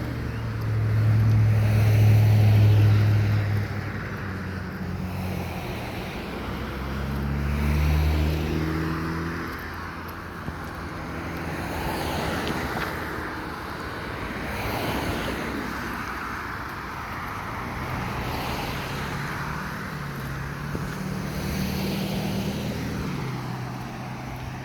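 Several cars passing one after another, each engine hum and tyre noise swelling and fading; the first, about a second in, is the loudest.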